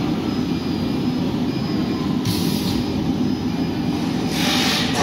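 CNC four-side wood board cutting machine running: a steady heavy mechanical rumble, with two short hisses about two and four and a half seconds in.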